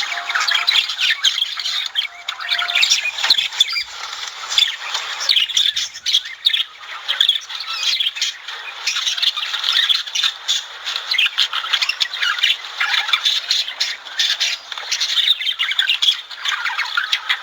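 Budgerigars chattering and warbling, a continuous busy stream of short squawks, chirps and scratchy notes.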